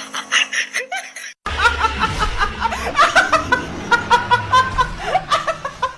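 A woman laughing hard in rapid bursts of rising and falling pitch, starting abruptly about a second and a half in after a short rapid pulsing sound cuts off.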